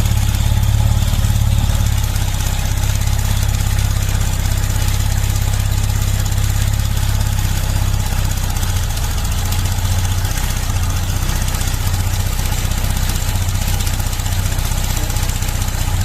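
Honda Vario 125 scooter's single-cylinder engine idling, a little faster for the first couple of seconds after starting and then steady, with a rattling tick from the front of the engine. The tick comes from worn, loose intake and exhaust rocker arms that need replacing.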